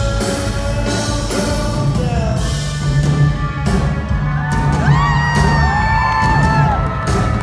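Live band music with singing, played loud in a concert hall; from about halfway in, fans scream and whoop high over it.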